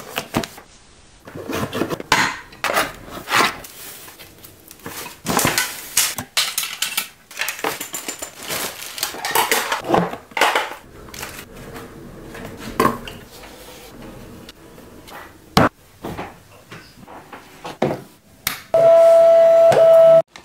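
Close handling sounds of unboxing: cardboard box and plastic packaging knocking, rustling and clattering as a Phomemo thermal label printer and its cables are taken out. Near the end a steady whine for about a second and a half as the printer feeds out a label.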